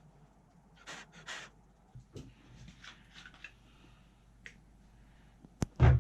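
Handling and wiping noises as old thermal paste is cleaned off a graphics card's GPU die: a couple of short scratchy rubs, scattered light rubs and ticks, then a sharp click and a heavy thump near the end.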